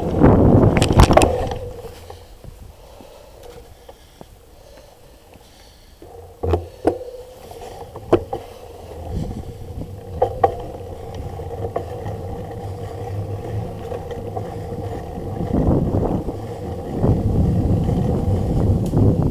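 Mountain bike ridden fast down a bumpy dirt trail: wind rushing over the bike-mounted microphone and tyres rolling on dirt, loudest in the first second or so. A handful of sharp clacks and rattles from the bike come a few seconds apart in the middle, and the rush builds again near the end.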